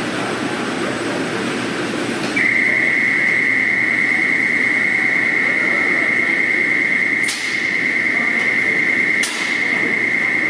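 Robotic drum-palletizing cell running: a steady machinery hum, joined about two seconds in by a steady high-pitched tone that holds. Twice near the end the tone drops out briefly under a short, sharp hiss.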